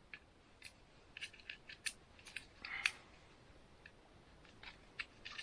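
Faint small clicks and taps from handling a battery smoke detector being tested, with a short scrape about three seconds in that is the loudest sound.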